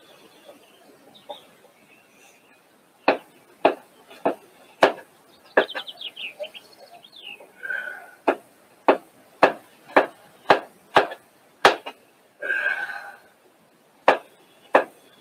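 Kitchen knife chopping food on a cutting board: sharp, even knocks about two a second, starting a few seconds in, pausing briefly midway, then resuming.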